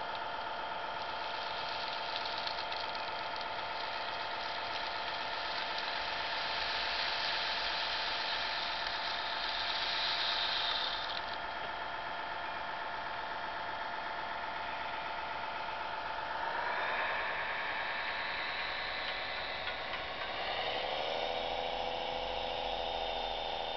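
Radio-controlled DAF XF 105 roll-off tipper model running with a steady hum while its hydraulic tipper raises the bed and the gravel load slides out. The gravel makes a hiss that grows to a peak about ten seconds in and stops abruptly just after. The truck's note shifts around sixteen seconds in and rises near the end as it drives off.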